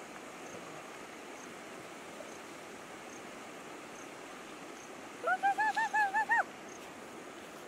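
An animal calls in a quick run of about eight short pitched notes over about a second, a little past the middle, rising slightly in pitch through the run, over a steady outdoor hiss.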